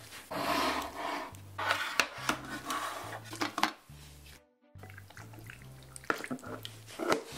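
Food containers and dishes being handled: rustling and scraping of a plastic takeout container, then a few sharp clinks as tteokbokki in sauce is poured into a ceramic bowl. Background music with a simple repeating bass line plays throughout.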